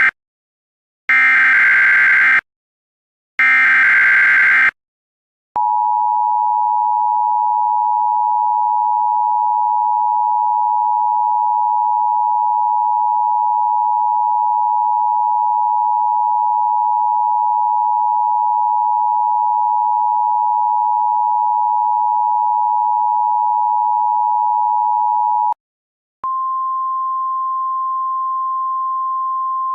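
Emergency Alert System signals: two short buzzy data bursts of the SAME header, then the two-tone EAS attention signal held steady for about twenty seconds. It stops, and about a second later a single steady 1050 Hz weather-radio alert tone begins.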